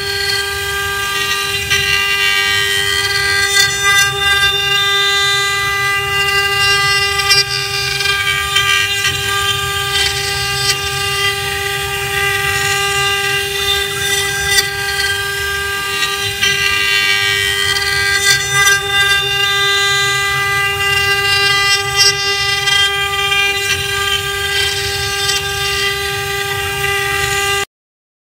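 4-axis CNC router spindle carving a wooden sofa leg turning on the rotary axis: a steady high whine with a rasping cutting noise over it that swells and fades as the bit works. It cuts off suddenly near the end.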